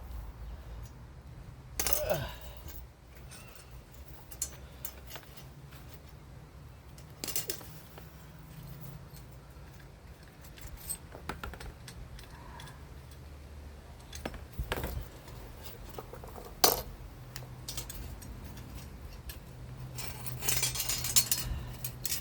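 Hand wrench clinking and scraping against metal while tightening an awkward fitting: scattered sharp metallic clicks, with a busier run of clinking near the end.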